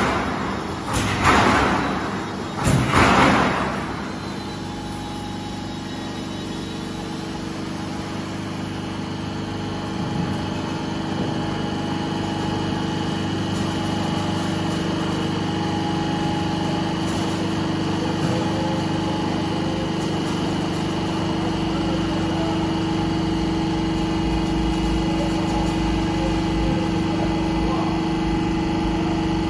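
Silo corrugated-sheet roll forming machine running: a steady mechanical drone with several constant tones that grows gradually louder as the sheet feeds through the rolls. Two heavy thumps sound in the first few seconds.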